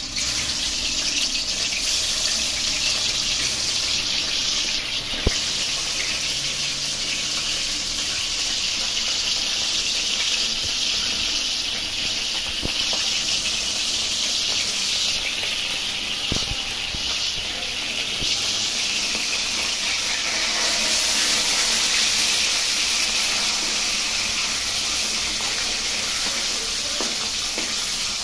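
Hilsa fish pieces shallow-frying in hot oil in an iron karai: a steady, hissing sizzle that grows a little louder about two-thirds of the way through. A couple of sharp knocks against the pan.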